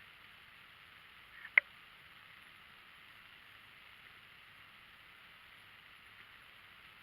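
A single sharp click about a second and a half in, just after a fainter tick, over a steady hiss.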